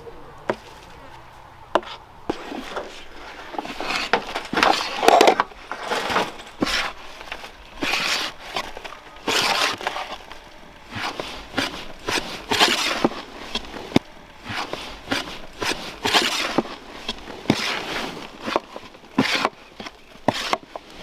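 Utensil stirring and scraping in a cooking pan: irregular scrapes with frequent sharp knocks and clicks.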